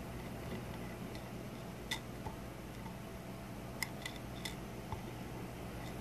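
Half a dozen faint, sharp clicks of glass seed beads knocking together as the beaded thread is pulled tight, over a low steady hum.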